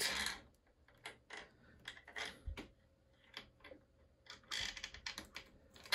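Quiet small metal clicks and rubbing from a nut being handled and threaded by hand onto the end of a scooter's rear brake cable, a little busier near the end.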